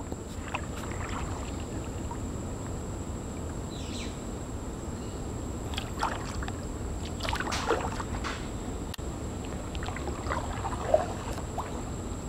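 Small paddled boat coming up to a wooden dock: water sounds with a few scattered short knocks and splashes, and no motor.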